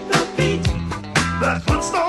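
Funk music: a bass line over a drum beat that hits about twice a second.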